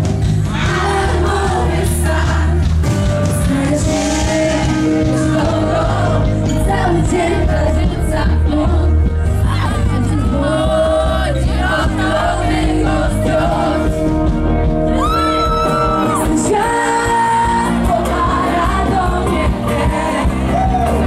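Live pop music from a band with a woman singing lead and backing voices over a steady bass, and shouts from the crowd. About fifteen seconds in a long high note is held.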